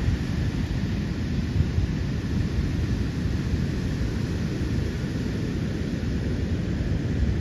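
Steady roar of heavy surf on a storm-driven sea as a typhoon approaches, with strong wind buffeting the microphone in an uneven low rumble.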